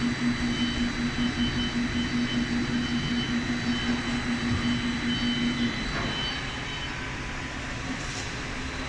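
Spindle veneer rotary lathe running, a steady mechanical noise with a fluttering hum. About six seconds in the hum stops and a quieter steady machine noise carries on.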